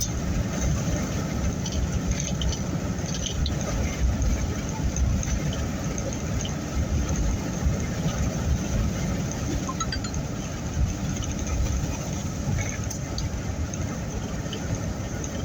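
Steady low road and engine rumble inside the cab of a moving truck, with a few faint scattered ticks and rattles.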